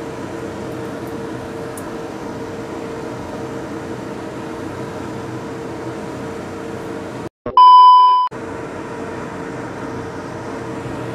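Steady kitchen hum and hiss while rice vermicelli is stir-fried in a wok. About seven seconds in, the sound drops out briefly for a loud, steady electronic beep lasting under a second, then the hum returns.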